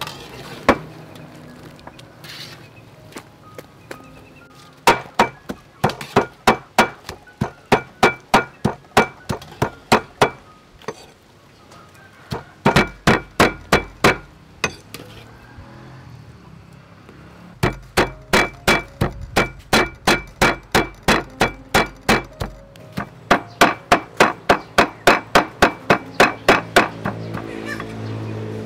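Two cleavers mincing raw pork on a wooden cutting board: sharp, even chopping strokes about three a second, in three runs with short pauses between.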